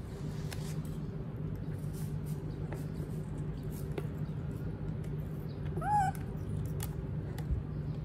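A baby macaque gives one short, high squeak that rises and falls in pitch about six seconds in, over faint scattered clicks and a steady low hum.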